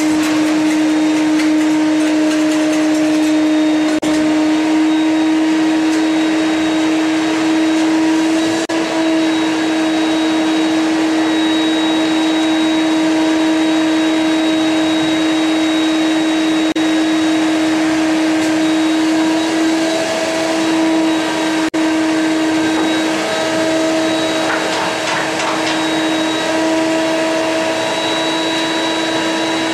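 Vacuum cleaner running steadily: a constant motor hum holding one pitch over an even hiss.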